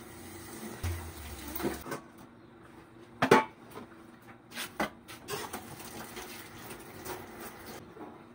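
Hand dishwashing at a stainless steel sink: scrubbing and handling noises with sharp knocks and clinks of dishware against the sink. The loudest knock comes a little over three seconds in, with two more close together around five seconds.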